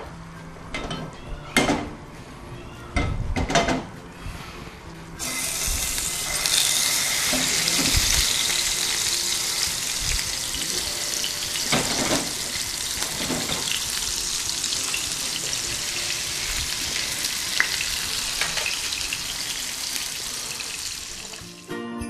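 Robalo (snook) fillets frying in hot olive oil in a frying pan. A few sharp knocks come first, then a loud sizzle starts suddenly about five seconds in and stays steady until it cuts off near the end.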